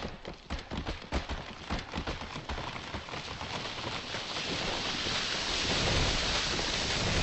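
Rain: a crackle of scattered drops and taps over the first few seconds, building into a steady hiss of heavy rain that swells toward the end.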